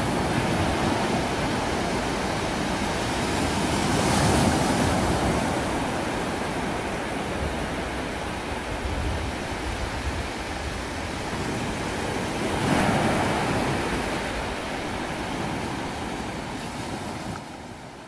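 Sea surf breaking on a shingle beach: a steady wash of waves, with two louder breakers about four seconds in and about thirteen seconds in, fading out at the end.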